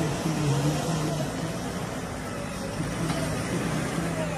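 Diesel engine of a JCB 3DX backhoe loader running while its front bucket digs into a heap of soil.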